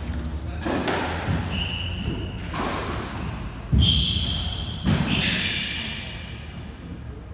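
Squash rally: the ball struck by rackets and hitting the walls in sharp smacks about a second apart, the loudest nearly four seconds in, with short high squeaks of shoes on the wooden court floor between the hits. The hits stop a little after five seconds in.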